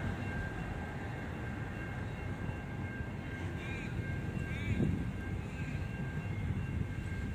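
Double-stacked container freight train rolling past at a steady speed: a continuous rumble of wagon wheels on the rails, with a faint steady high-pitched tone above it and wind buffeting the microphone.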